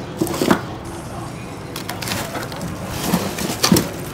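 Hands rummaging in a chest freezer, frozen packages and a plastic jug knocking and scraping among ice, with several sharp knocks; the loudest comes near the end.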